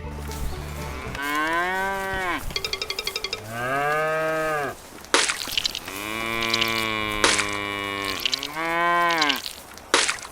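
Cows mooing: about four long calls one after another, each rising and falling in pitch, the longest lasting about two seconds. A brief rapid pulsing sound falls between the first and second moos.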